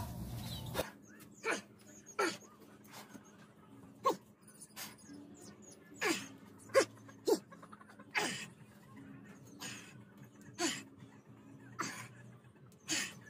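Short breathy vocal sounds, each falling in pitch, coming irregularly about once a second over a faint steady hum.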